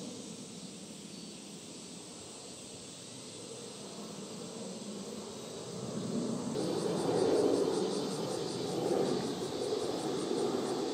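Jet rumble from an ANA Boeing 767's twin turbofan engines passing overhead at altitude, swelling to its loudest about six seconds in. A high, fast-pulsing insect buzz sets in at about the same point.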